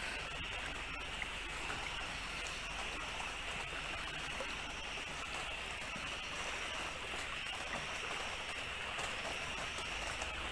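Steady rush of heavy rain and running floodwater, an even hiss that holds level throughout.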